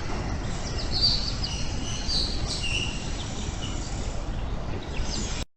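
Several birds chirping and calling in an aviary: short high chirps and quick sharp notes from more than one bird, over a steady low background rumble. The sound drops out abruptly for a moment near the end.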